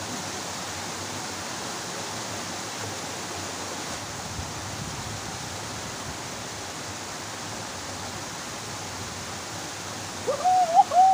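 Steady rushing of water pouring into a shallow stream. Near the end, a short, louder pitched call that bends up and down briefly rises over the water.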